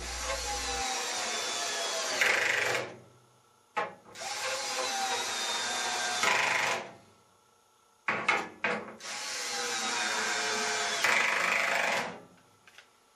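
Cordless screwdriver driving in the holding screws of a dryer drum baffle: three runs of about three seconds each, with a few short trigger blips between them.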